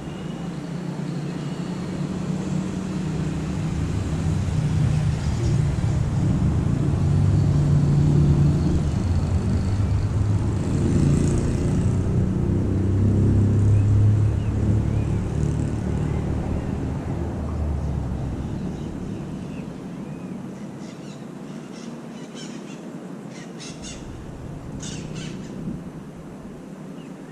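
A motor vehicle passing: a low rumble that swells, peaks midway and fades away. Near the end, a bird gives several short, high calls.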